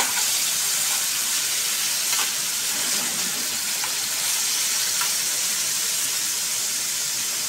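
Raw chicken pieces sizzling steadily as they sear in hot ghee and oil in a metal frying pan. A spoon stirs them, with a few faint scrapes.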